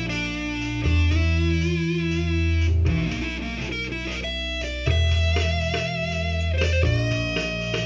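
Electric guitar played through an amplifier: a quick, changing lead line over sustained low notes that shift every second or two.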